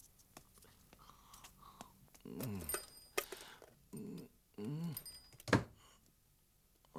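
A man's wordless, sleepy groans and grunts, each falling in pitch, with clicks and knocks as a wind-up alarm clock is grabbed and handled. The loudest sound is one sharp knock about five and a half seconds in.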